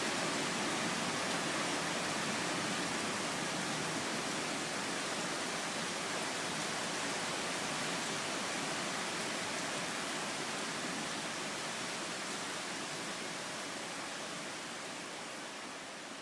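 Heavy rain pouring steadily in a summer thunderstorm, an even rushing hiss that grows gradually quieter over the last few seconds.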